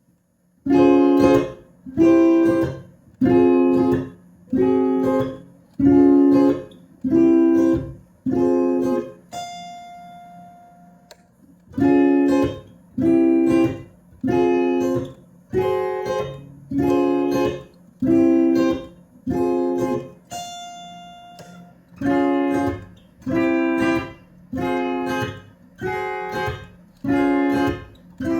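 LEGO-bodied Telecaster-style electric guitar strummed in a steady rhythm of chords, about one strum every 0.8 seconds. Twice, about ten and twenty seconds in, the strumming stops and a single high note rings on its own. A faint steady low hum sits underneath.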